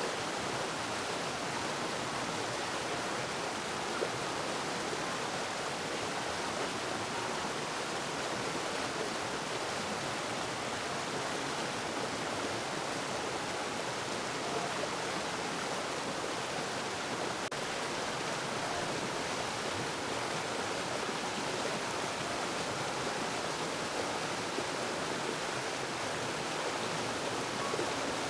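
Running water, a steady, even rush with no change throughout.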